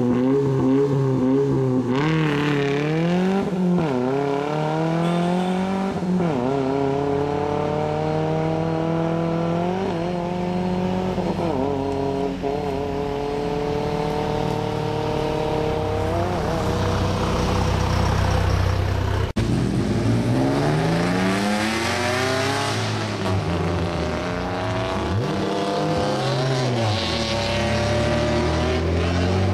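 Rally car engine pulling hard through the gears: the pitch climbs, then drops back at each upshift, every two to four seconds. About two-thirds of the way through it slows and there is a brief break, then it accelerates up through the gears again.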